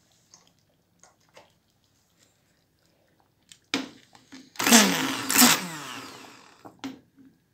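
Handheld immersion blender run in a pot of red lentil soup to purée it: a short loud whir starting about four and a half seconds in that drops in pitch and fades out over about two seconds, with a click just before it starts and another near the end.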